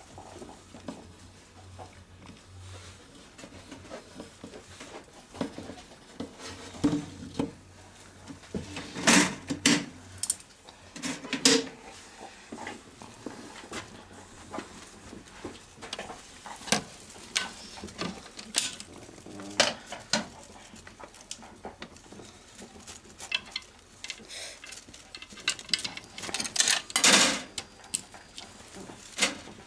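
Irregular clinks, clicks and knocks of metal feeding tongs and a glass reptile tank being handled, loudest about nine, eleven and twenty-seven seconds in. A faint low hum runs under the first few seconds.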